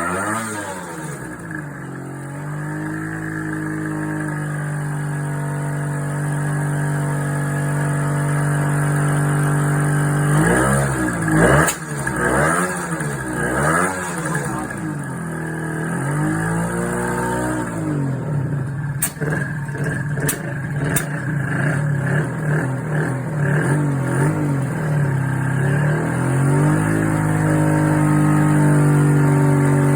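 Honda NSR250R MC21's two-stroke V-twin idling, then revved in several quick throttle blips before settling back to idle. A few sharp popping bangs break in, one during the first revs and three more a few seconds later. These are the bursting pops that the owner traces to the front cylinder bank of the poorly running engine, cause unknown.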